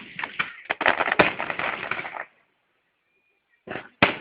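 Fireworks going off: a rapid run of bangs and crackles for about two seconds, a short lull, then two more sharp bangs near the end.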